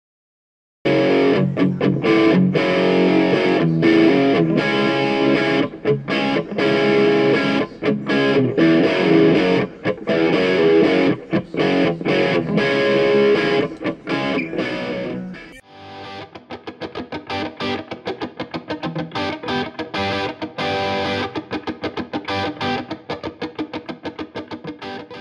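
Outro music, starting about a second in. About 16 seconds in it changes to a lighter passage with a fast, even pulse, and it cuts off at the very end.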